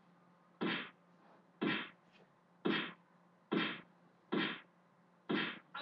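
A person beatboxing, making a short, sharp vocal beat about once a second, six times.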